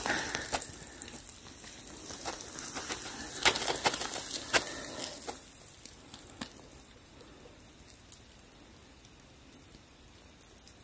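Close rustling and scattered crackles of movement in frozen, snow-dusted dry leaves, louder for the first five seconds and then fading to a faint rustle.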